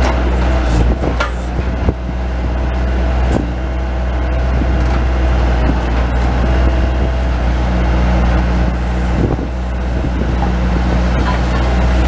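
Bobcat S185 skid steer loader's diesel engine running steadily under load, powering a 911 backhoe attachment as it digs. A few short knocks come through, near the start and again about three quarters of the way in.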